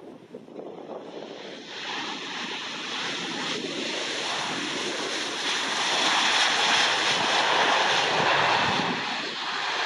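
Jet engine noise from an Airbus A320-232's IAE V2500 turbofans as the airliner rolls along the runway after landing and passes by. It is a steady rushing noise that builds from about two seconds in and is loudest a few seconds before the end, with some wind on the microphone.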